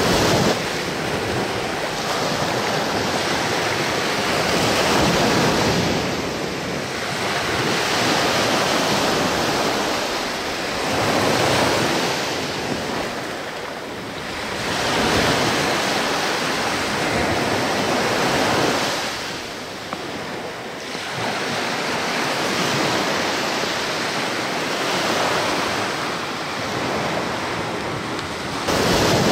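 Small sea waves washing onto a sandy shore, swelling and falling back every few seconds.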